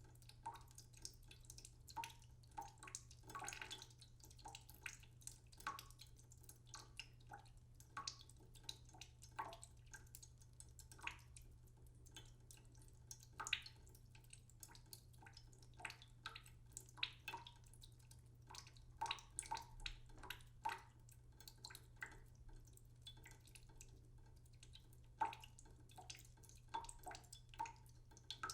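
Water dripping slowly into a cooking pot in a sink: faint, irregular plinks, a few each second, some with a brief ringing note.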